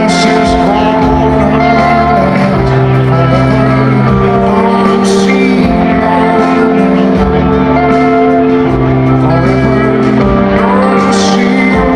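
A rock band playing live, with violin, electric guitar, keyboards and drums over sustained chords and a moving bass line. It is heard from within the audience.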